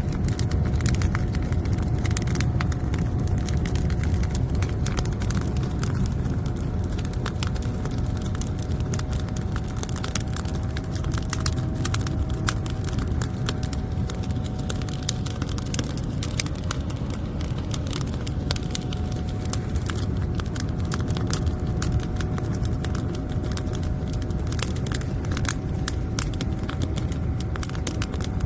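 Firewood fire burning hard under a forced draft: a steady low roar with frequent crackles and pops, and a steady whine running under it throughout.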